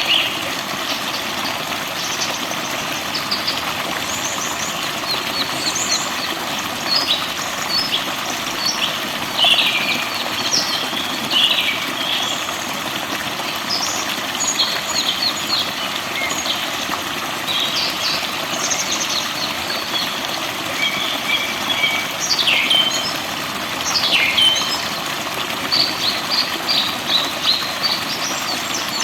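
Forest birds chirping and singing in many short, quick calls and trills over a steady rush of running water.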